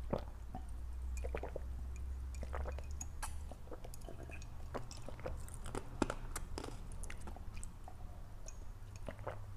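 Close-miked gulping and swallowing as a person drinks from a glass, picked up by a clip-on chest microphone: irregular wet gulps and mouth clicks over a low steady hum.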